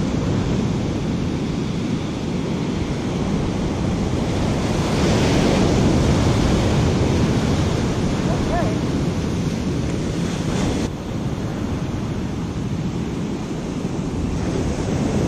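Heavy ocean surf breaking and washing up the beach, with wind buffeting the microphone. The sound cuts abruptly about eleven seconds in to slightly quieter surf.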